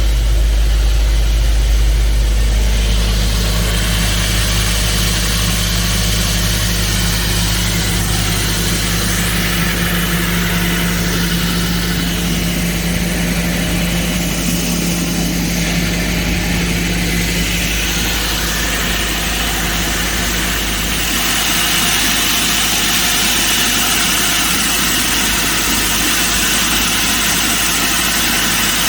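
Excavator diesel engine running steadily under load while it powers a hydraulic core drill boring into rock. About two-thirds through, the low hum drops and a higher hiss comes up.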